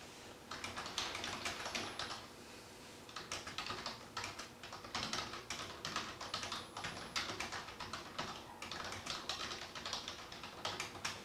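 Light, sharp clicks in quick irregular runs, each run lasting one to three seconds with short pauses between.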